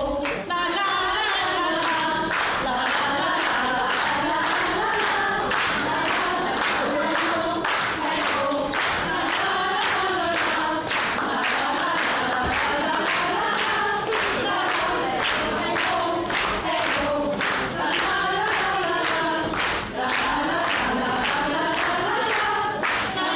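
A group of women singing a song together without instruments, with hand claps keeping a steady beat.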